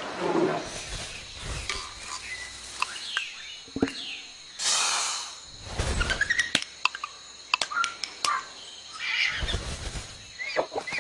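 A quick series of added sound effects: sharp clicks and ticks, short rising chirps, and a few longer whooshing bursts.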